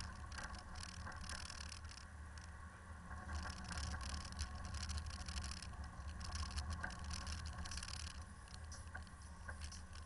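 Land Rover driving slowly on a slushy gravel mountain track: a low, steady engine and road rumble with irregular crackling and scraping from the tyres on the wet slush and grit.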